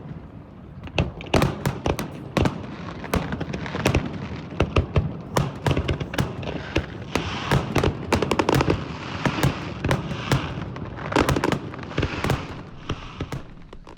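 Fireworks going off: many sharp bangs and pops in quick succession, with a crackling hiss thickening through the middle.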